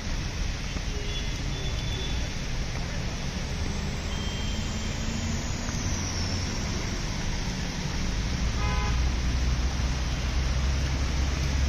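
Traffic on a flooded, rain-soaked road: a steady hiss of rain and water spray under the low rumble of bus and vehicle engines, which grows louder about eight seconds in, with a brief horn beep a little before that.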